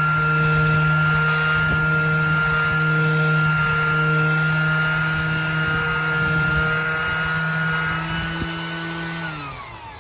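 Bauer 20V cordless 5-inch random orbital sander with 80-grit paper running at full speed: a steady high whine over a low hum. Near the end it is switched off and winds down, its pitch falling.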